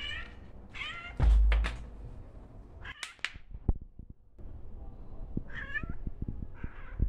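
A cat meowing repeatedly in short calls. A loud low thump comes about a second in, with small clicks and taps later on.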